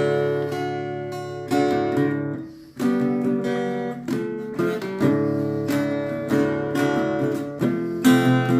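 Acoustic guitar being strummed, chords ringing and changing every second or so, with a brief break a little under three seconds in.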